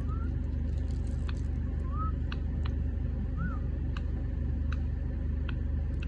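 A steady low hum throughout, with three faint short rising-and-falling chirps from a campo troupial (corrupião) and several sharp ticks of its beak on the tiled counter.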